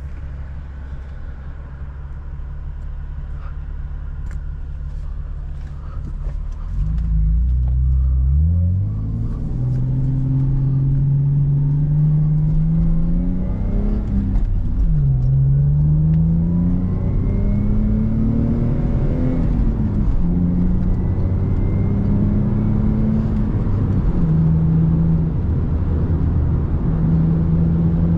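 Lexus IS300's 3.0-litre inline-six (2JZ-GE) engine running steadily at low revs, then accelerating hard about seven seconds in, its pitch climbing as it revs up. It shifts up twice, the pitch dropping each time, then settles into a steady cruise.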